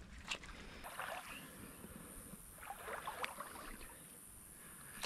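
Faint, scattered splashes and swishes of a crabbing dip net being moved through shallow creek water.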